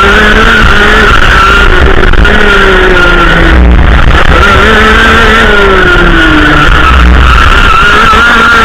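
Racing kart's two-stroke engine at full race pace, loud, its pitch climbing and falling in about three long sweeps as the kart accelerates out of corners and lifts off into the next.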